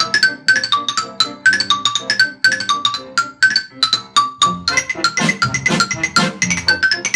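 Xylophone playing a fast run of quick, bright struck notes over a jazz band, in a 1920s-style novelty number. The band swells up fuller and louder about five seconds in.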